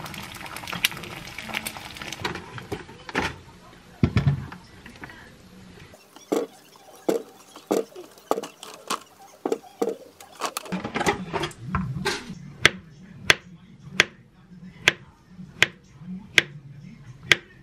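Kitchen prep sounds: a fried egg sizzles in a small pan, then green grapes tick one by one into a stainless steel mesh colander. In the last seconds, a chef's knife slices a thawed avocado on a wooden cutting board, tapping sharply about every three-quarters of a second.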